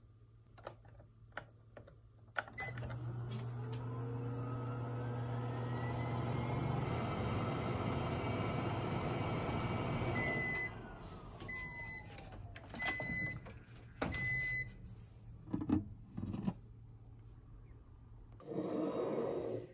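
Microwave oven: a few button beeps, then the oven running with a steady hum and a whine that slowly rises, stopping about ten seconds in, followed by a series of high completion beeps about a second apart. Near the end come two knocks and handling noise as the door is opened and the glass sake jar is taken out.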